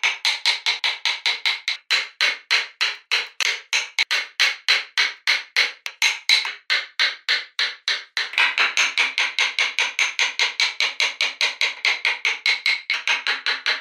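Wooden mallet striking the handle of a wood chisel in quick, even blows, about four a second, as the chisel chops into a block of wood.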